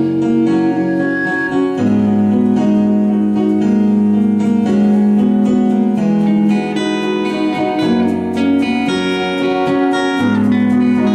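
Live band playing an instrumental passage at a sound check: guitar and keyboard chords over a bass line that changes every couple of seconds.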